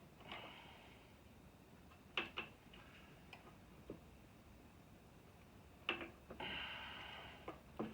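Sharp metallic clicks and clinks of a wrench working on a bolt, a few scattered strikes. About three-quarters of the way through, one strike rings on for about a second.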